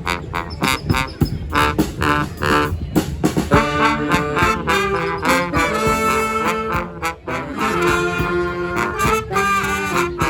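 Street brass band playing live: trombones, trumpets and saxophones holding chords and lines over a steady percussive beat, with a brief break about seven seconds in.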